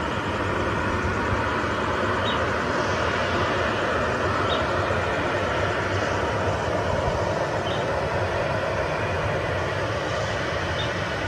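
Boeing 737-800's CFM56-7B turbofan engines at low power as the airliner taxis on the runway: a steady, even rush of jet noise. Four faint short high chirps come about two to three seconds apart.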